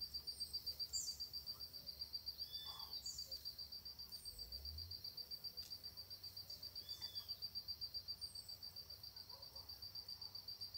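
An insect trills steadily in a high, fast, even pulse, with birds calling now and then over it: short arching notes every few seconds and quick high downward chirps.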